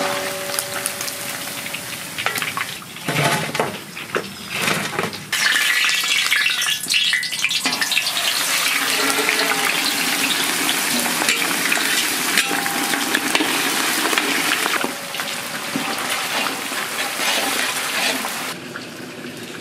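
Chicken pieces deep-frying in hot oil in a large wok, with a steady loud sizzle and a spatula stirring through them. The sizzle is patchy at first, turns strong about five seconds in, and eases off near the end.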